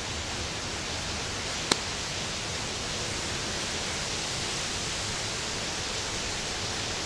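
Steady, even hiss of background noise, with a single sharp click a little under two seconds in.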